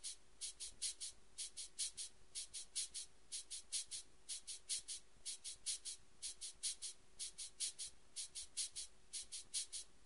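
Hand-crank flour sifter being cranked: quick, regular scratchy rasps, about four or five a second in short runs, as the agitator wires sweep flour through the mesh screen.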